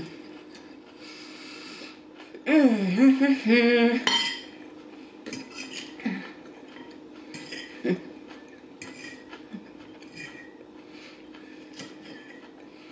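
Metal fork tapping and scraping on a salad plate while picking up Caesar salad, in short scattered clicks. About two and a half seconds in comes a drawn-out wordless vocal hum from the eater, the loudest sound here.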